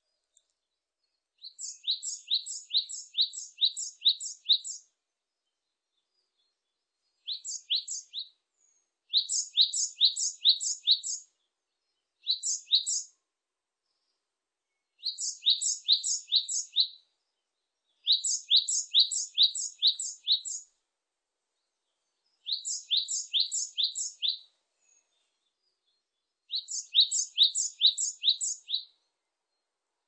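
Japanese tit (Parus minor) singing. Its song comes in bouts of quick, high-pitched two-note phrases repeated about three times a second, each bout lasting a second or two, with short silences between them.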